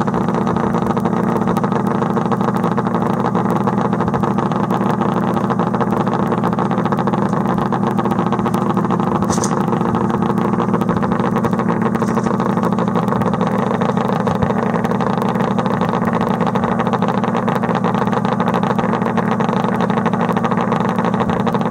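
Snowmobile engine idling steadily close by, an even engine note that holds the same speed throughout.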